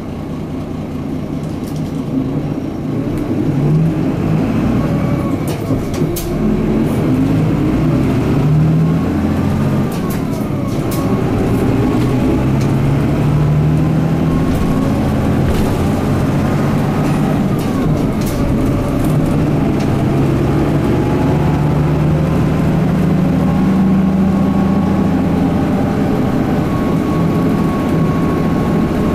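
Mitsubishi Fuso Aero Midi MK bus with its 6M61 inline-six diesel and five-speed manual gearbox, heard from inside the cabin. The bus pulls away and accelerates. The engine note climbs in each gear and drops back at each upshift, several times over.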